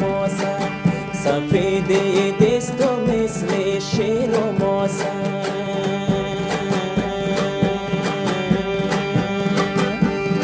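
Hazaragi folk music: a dambura (Afghan long-necked lute) strummed in a quick, even rhythm over sustained harmonium chords. A man's voice sings over them in the first few seconds, and the rest is instrumental.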